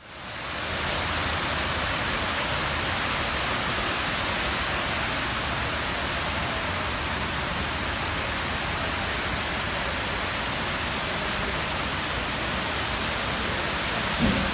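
Steady rushing of water pouring down the stone walls of a 9/11 Memorial waterfall pool, fading in at the start. A brief low thump near the end.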